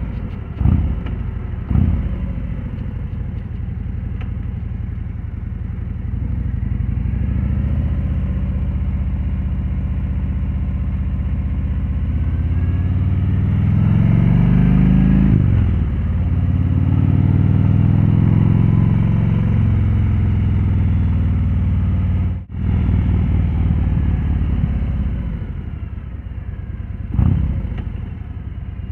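Harley-Davidson Road Glide Limited's V-twin running through newly fitted Khrome Werks 4-inch slip-on mufflers. There are two quick throttle blips near the start, then the engine revs up over a few seconds and drops back sharply, holds a higher steady pitch for a while, and gives one more blip near the end.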